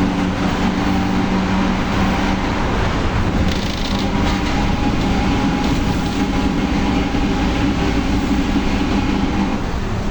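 Volkswagen 17-230 OD bus under way, its differential growling loudly as a steady drone over the engine and road noise; the drone eases near the end.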